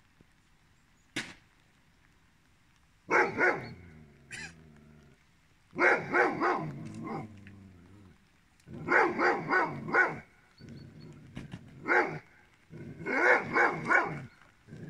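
Curly-coated retriever barking loudly in bursts of two to four deep barks, a burst every few seconds, starting about three seconds in.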